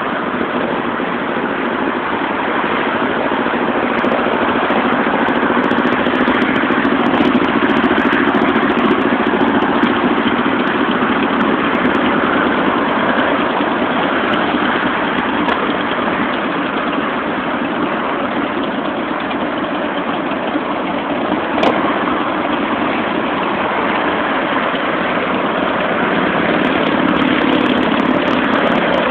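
Many cruiser motorcycles riding past one after another in a long procession, their engines blending into one continuous, steady run of engine noise. There is a single short click about two-thirds of the way through.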